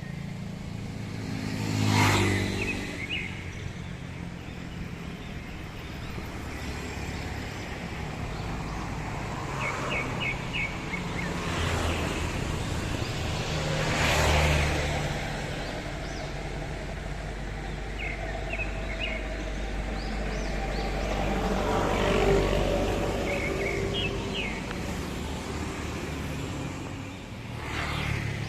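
Road traffic: vehicles pass by three times, each swelling and fading over a steady background rumble. Between them come short bursts of quick, high bird chirps.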